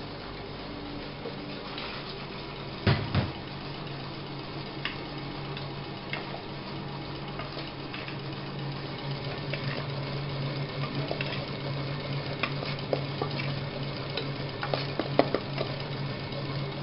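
Electric stand mixer running, its whisk beating crêpe batter in a steel bowl, with a steady motor hum that grows louder in the second half. There is a knock about three seconds in, and scattered metallic clinks as a steel bowl is tipped against the mixer bowl to add more.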